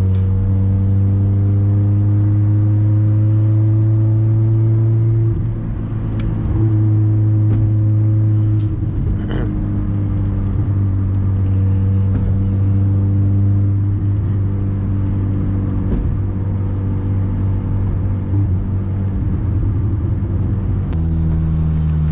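Honda car's engine and sport exhaust heard inside the closed cabin: a loud low drone that climbs slowly in pitch under light throttle, drops about five seconds in as the gear changes, then holds an even drone at cruising speed, dropping in pitch again near the end. The exhaust has no catalytic converter and no rear muffler, only a large intermediate muffler.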